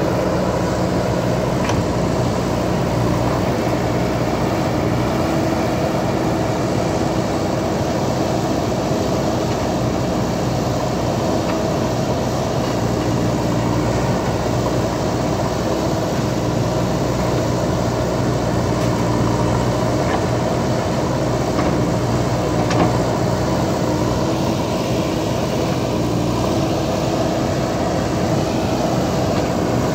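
JCB backhoe loader's diesel engine running steadily under work, with a few brief knocks, the sharpest about two-thirds of the way through.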